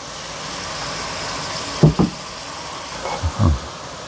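Chopped onion sizzling in hot olive oil and garlic in a frying pan, the hiss swelling over the first second. Two pairs of sharp knocks of a utensil against the pan come about two seconds in and again about three and a half seconds in.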